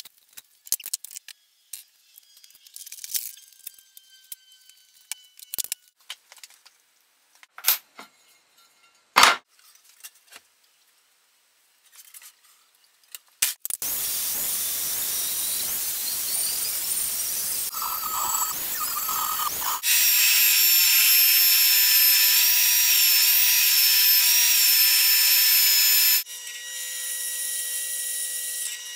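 Scattered clicks and knocks of tools and steel being handled, with one loud knock partway through. Then a DeWalt angle grinder cutting 1x1 square steel runs steadily and gets louder partway into the cut, and near the end a drill press runs, drilling steel.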